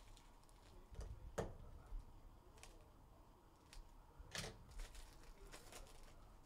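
Faint crinkling and tearing of a foil trading-card pack wrapper being opened by hand, in a few scattered crackles.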